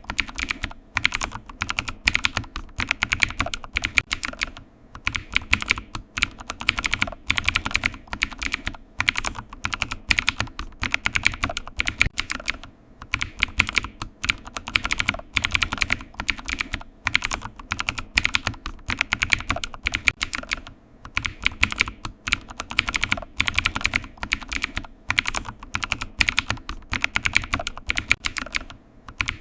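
Typing on a computer keyboard: rapid key clicks in runs, broken by short pauses.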